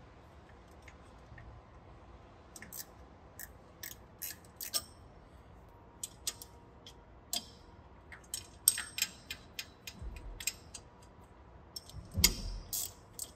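Ratchet wrench clicking in short, irregular runs as the casing bolts of an ECH pump are tightened in sequence, with a dull knock about twelve seconds in.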